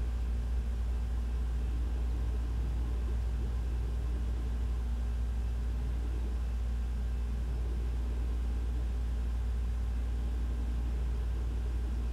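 Steady low drone of a ceiling ventilation system running, with a faint hum and no changes.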